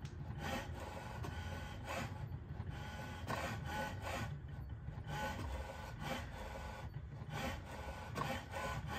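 HP Smart Tank 515 inkjet printer printing its print-head alignment page: repeated short mechanical strokes of the print carriage and paper feed.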